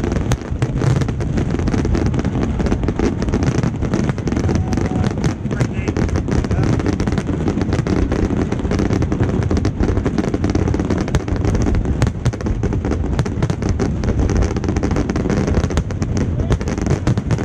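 Fireworks display: aerial shells bursting in a dense, unbroken run of loud bangs and crackling, with people's voices mixed in.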